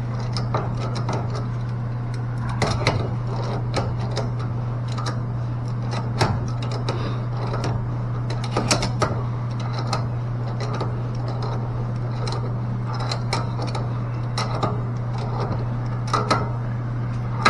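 Scattered light metallic clicks and taps of pliers working the brass check-stop caps of a mixing valve, snugging them down by hand, over a steady low hum.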